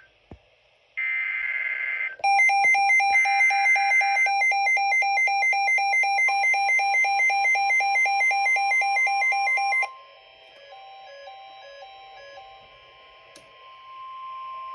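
Midland WR120 weather radio alerting for a severe thunderstorm warning. Buzzy data-header bursts come first, then the radio's own loud pulsing beep alarm from about two seconds in until about ten seconds in. A steady single-pitch alert tone starts partway through the beeping and continues on its own, quieter, after the beeping stops.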